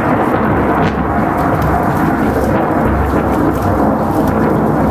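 Thunder rumbling steadily, with rain falling.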